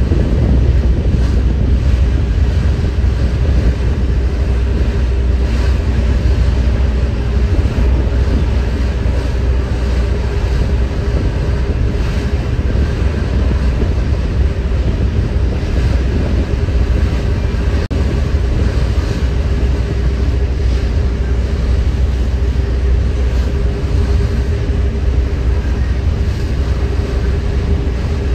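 Passenger ferry under way: a steady low engine rumble with a constant hum, wind buffeting the microphone, and water rushing past the hull.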